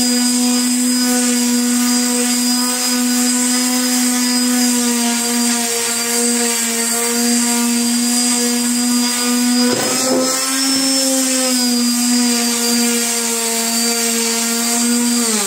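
Small vibration-only finishing sander running with a steady electric-motor hum, then switched off at the very end, its pitch falling as the motor winds down.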